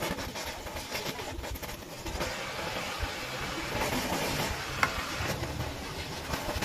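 Gas welding torch flame hissing steadily while it melts a piece of aluminium held in pliers, with a few small ticks and taps of metal.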